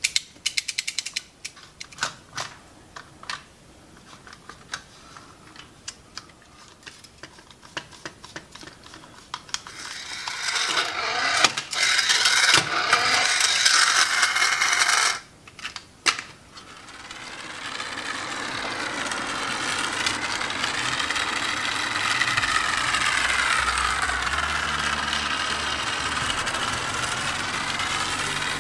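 Radio-controlled toy car mechanism clicking, then its small electric motor and gears running in bursts. From about two-thirds of the way in, background music with a wavering melody and a stepping bass line takes over.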